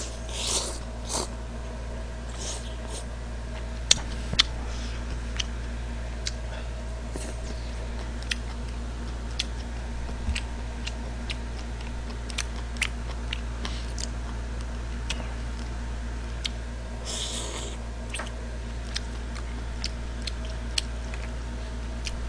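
Close-miked eating of jjamppong noodles: noisy slurps right at the start and again about three quarters of the way through, with sharp chewing clicks and smacks in between, over a steady low hum.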